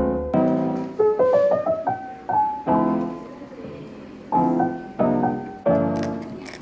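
Background music: a gentle piano instrumental, single melody notes and chords struck and left to fade.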